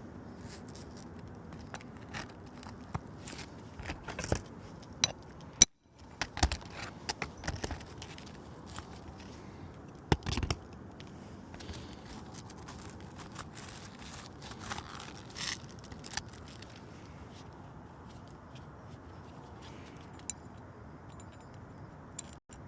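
Irregular clicks, taps and scrapes of hands and tools working on a roof shingle, over a steady background hiss, with one sharp knock about six seconds in.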